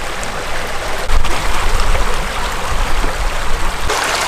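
Shallow spring-fed creek running over rocks, a steady rush of water. From about a second in until near the end, a low rumbling sits under it. Near the end the water sound turns abruptly brighter.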